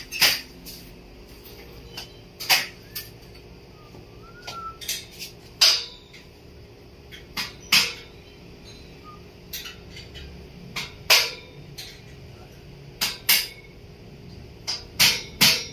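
A hammer knocking on a stainless steel window grill as it is tapped into place: sharp metallic clanks at irregular intervals, every second or so, some in quick pairs.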